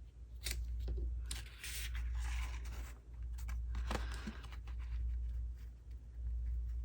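Sheets of cardstock being handled, with several short rustles and scrapes of paper sliding against paper.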